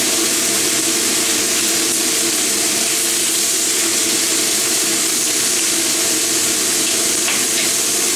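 Chicken thigh pieces sizzling steadily, skin side down, in a hot frying pan with no oil added. A faint steady hum lies beneath.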